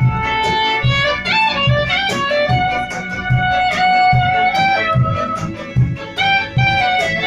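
Soprano saxophone playing a melody of held notes with short slides between them, over a recorded backing track with a steady beat.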